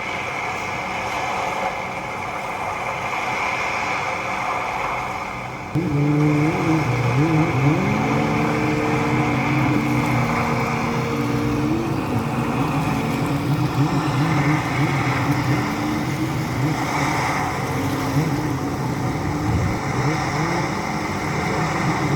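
Steady noise, then from about six seconds in a motorboat engine running, its pitch rising and falling as it revs.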